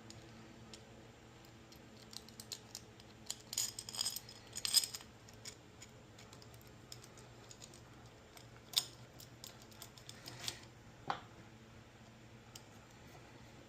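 Scattered light clicks and clinks of small metal engine parts and hand tools being handled on a workbench while a string trimmer is taken apart, busiest about four seconds in, with a few sharper single clicks later on.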